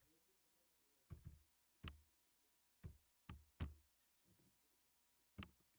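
Faint clicks of keys being pressed on a computer keyboard, about six separate strokes at uneven intervals, over a faint steady hum.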